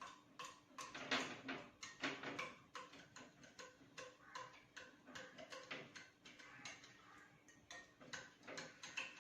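A spoon stirring mango pulp concentrate into water in a tall glass, clinking lightly against the glass in a fast, uneven run of taps.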